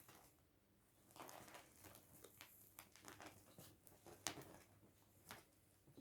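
Faint, irregular rustling and scratching of a blanket as a ferret and a kitten play on and under it, with one sharper tap about four seconds in.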